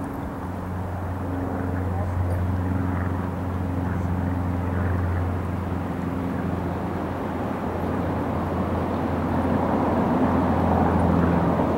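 A steady, low engine hum that grows somewhat louder over the last few seconds.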